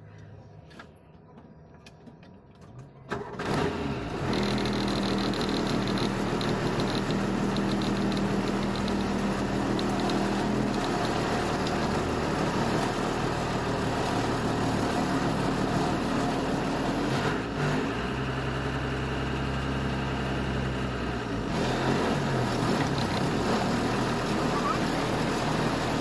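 Lorry's diesel engine running with a steady low hum, its pitch shifting a few times. It comes in suddenly about three seconds in, after a quiet start.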